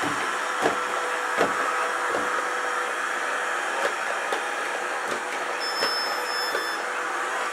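Clever&clean M-series 002 robot vacuum cleaner running: a steady whir from its fan and brushes, with a few light knocks spaced irregularly through it.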